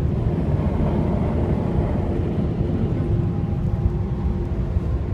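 A car moving slowly, heard from inside the cabin: a steady low rumble of engine and road noise with a faint constant hum above it.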